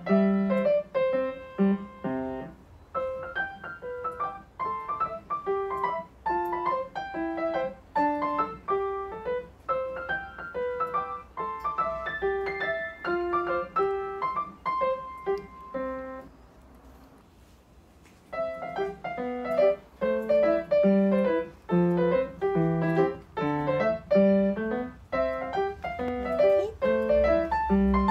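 Background piano music: a gentle melody of single notes over lower bass notes, with a short pause about two-thirds of the way through.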